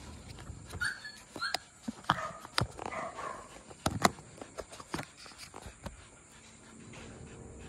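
Siberian husky whimpering in short high whines, mixed with several sharp clicks and knocks.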